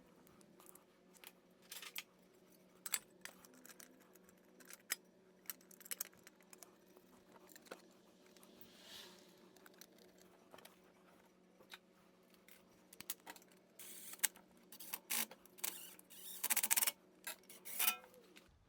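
Metal tools and parts being handled: scattered clinks, taps and scrapes, busier near the end, over a steady low hum.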